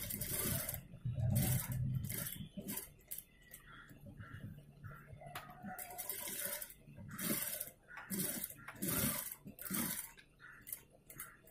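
Industrial single-needle lockstitch sewing machine stitching in short bursts, with cloth rustling as the fabric is guided and shifted under the presser foot.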